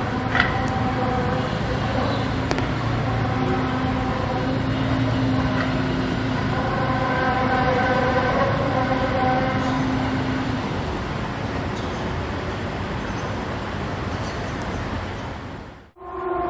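Eerie 'strange sound in the sky' recording: a continuous low rumble with several steady droning tones layered over it, swelling in the middle and easing off later. It cuts off abruptly near the end.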